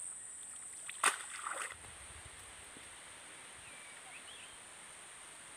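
A cast net splashing in shallow muddy water for about half a second, starting with a sharp slap about a second in. Under it runs a steady high insect drone, and a few faint bird chirps come later.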